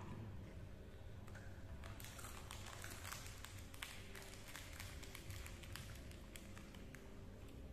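Quiet eating sounds from eating by hand off a plastic plate: a run of light, irregular clicks and taps over a faint steady hum.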